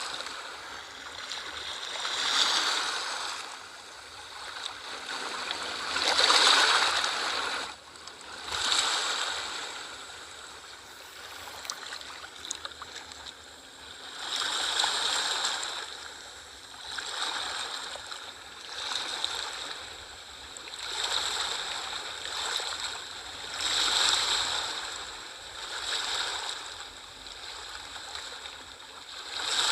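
Small sea waves washing and lapping at the shore, each wash swelling and falling away every two to three seconds, with a quieter lull near the middle.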